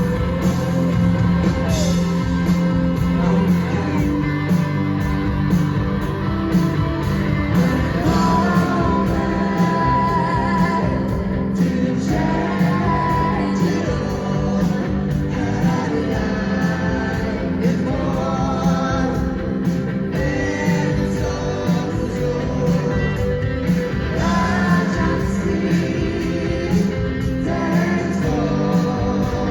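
Indie rock band playing live in a concert hall: a female lead voice sings over electric guitars, bass and a steady drum beat.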